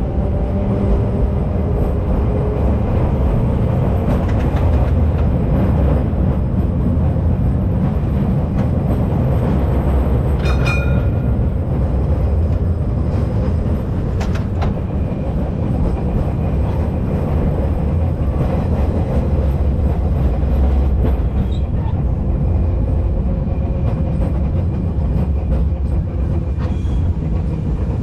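1925 W2-class tram running along the track: a steady low rumble of wheels on rail, with a short metallic ring about ten seconds in.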